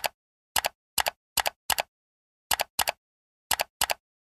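Computer-style click sound effects: about nine short double clicks at uneven spacing, like keys or a mouse being clicked.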